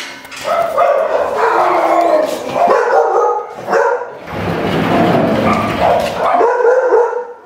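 A dog barking and whining over and over, with yips and whimpers, almost without a break except for a short pause midway.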